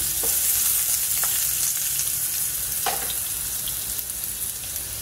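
Diced potatoes sizzling steadily in hot oil in an aluminium kadai, with a few clicks of a wooden spatula stirring them against the pan.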